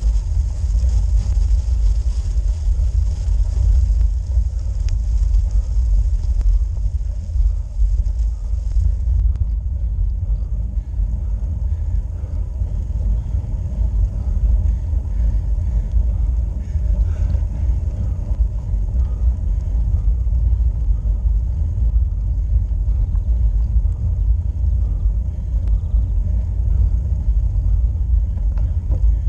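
Steady low rumble of road and wind noise on an action camera's microphone as a road bike climbs slowly. A higher hiss stops abruptly about nine seconds in.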